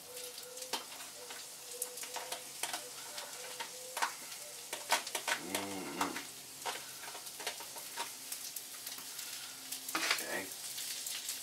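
Sliced onions sizzling in oil on a hot flat-top griddle, a steady frying hiss dotted with sharp clicks of metal tongs tapping the steel.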